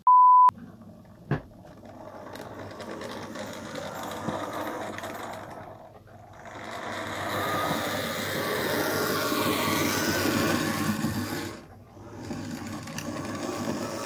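A short, loud beep tone, then a click, then a Hornby J94 OO gauge model locomotive running on the track, its motor and gears sounding crunchy, which the owner puts down to its not having been oiled in a very long time. The running sound swells and fades as the loco moves back and forth, loudest about two thirds of the way through, and briefly drops away twice.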